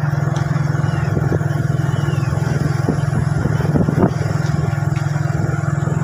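Motorcycle engine running steadily at cruising speed, heard from the rider's seat.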